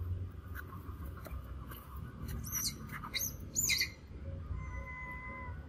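Animal calls: a quick run of high, falling chirps about halfway through, then one long, even call near the end.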